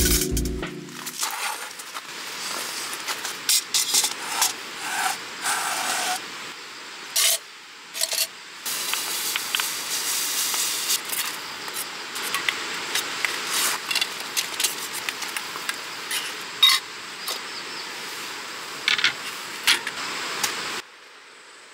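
Metal camp cookware on an alcohol stove: pots, lids and utensils clinking and knocking in short strokes over a steady soft hiss. About halfway through there is a rustling pour of powder from a paper packet. Near the end the sound drops off suddenly.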